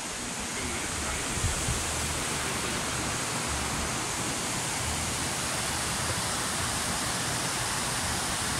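Steady rushing of a shallow mountain river running over rocks and small rapids.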